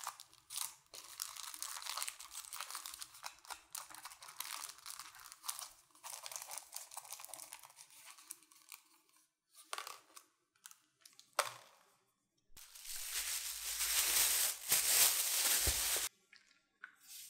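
Aluminium foil crinkling and crumpling as it is pressed and rolled by hand into a tube. Later, a louder stretch of plastic-bag rustling stops abruptly.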